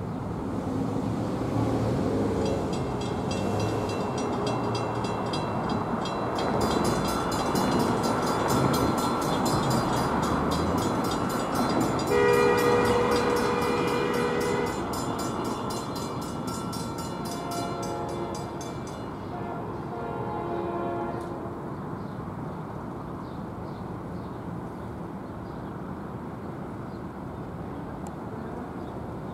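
Nathan K5LA air horn of an approaching NJ Transit PL42AC locomotive, still out of sight, sounding several blasts. The loudest is a long chord about twelve seconds in, followed by shorter blasts, in a pattern typical of a grade-crossing signal. Behind it a rapid, even metallic ringing runs until near the horn's last blasts, typical of a grade-crossing bell.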